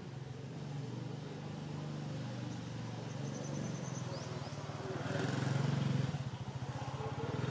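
A motor vehicle's engine running steadily, growing louder about five seconds in, with a few faint high chirps a few seconds in.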